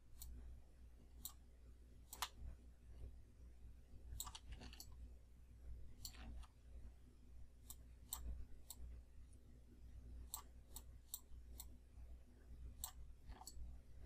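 Faint computer mouse clicks, about fifteen at irregular intervals, over a low steady hum.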